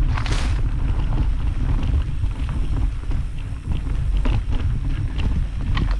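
Wind buffeting a GoPro microphone on a moving mountain bike, a steady low rumble with scattered clicks and rattles from the bike running over rough trail.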